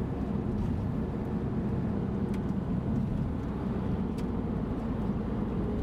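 Steady low rumble of a car on the move, heard from inside the cabin: engine and road noise, with two faint ticks partway through.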